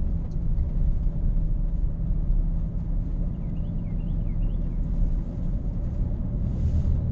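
Truck running with a steady low rumble of engine and road noise. A few faint high chirps come about three and a half to four and a half seconds in.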